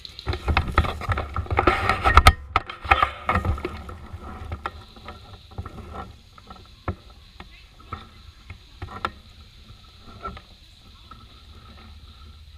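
Close rustling and crunching of brush and dry leaves as someone moves through undergrowth, loud for the first three seconds or so, then settling to quieter scattered snaps and clicks.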